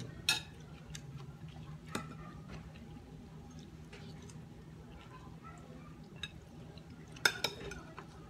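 Close-up eating sounds: chewing, with occasional sharp clinks of a metal spoon and fork against a glass bowl and plate. The loudest clinks come twice in quick succession near the end.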